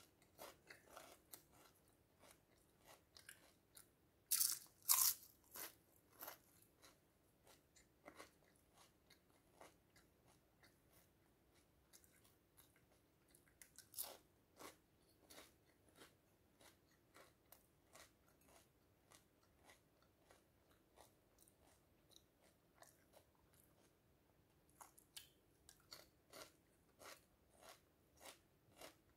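Crisp pumpkin-seed seaweed snacks being bitten and chewed: a long run of short dry crunches, loudest about four to five seconds in and again around fourteen seconds, with softer chewing clicks between.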